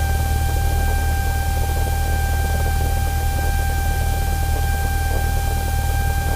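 Light aircraft's piston engine idling on the ground, a steady low drone with hiss heard inside the cabin, with a steady high-pitched whine running over it.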